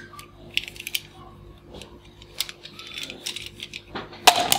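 Blue plastic toy handcuffs clicking and rattling as they are handled, with a louder clatter near the end.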